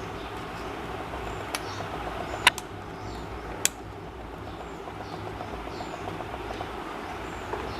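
A few sharp clicks or taps, four in all, the loudest about two and a half seconds in, over a steady low hum.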